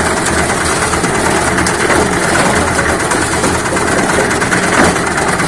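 Portable concrete mixer running steadily on its engine while its drum turns, mixing concrete.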